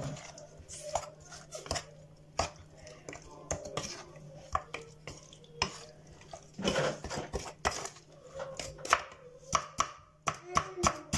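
Wooden spoon knocking and scraping against an earthenware tagine as raw chicken pieces are tossed with oil and spices, in irregular clacks with a longer scrape about two-thirds of the way through.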